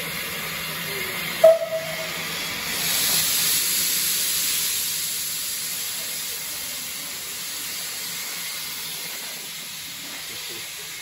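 Steam locomotive hissing steam, swelling about three seconds in and then slowly dying down, with one short sharp sound about a second and a half in.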